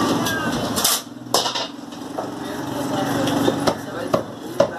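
Butcher's cleaver chopping meat on a wooden stump chopping block: a handful of sharp knocks at irregular spacing. A motor hums steadily underneath and drops out for a moment about a second in.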